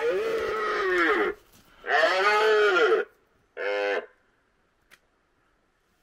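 Red stag roaring in the rut: two long, drawn-out roars, then a shorter one about three and a half seconds in.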